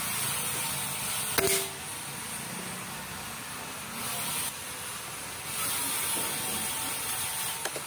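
A CO2 air rifle firing a single sharp shot about a second and a half in, with a brief ring after it, over steady background hiss. A fainter click comes near the end.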